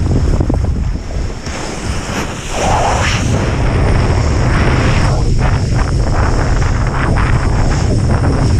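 Strong wind buffeting the microphone, with the rush of water and slush under a kitesurf board in surges, the strongest about three seconds in.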